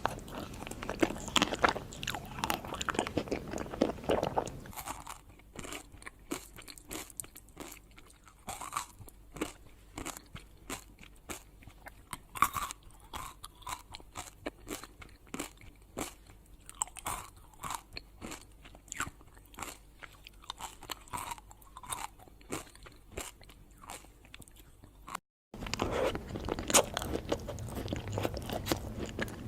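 Close-miked eating: crunchy food bitten and chewed, a dense run of crisp crunches. It turns quieter about five seconds in, and after a brief dropout near the end the crunching is louder again.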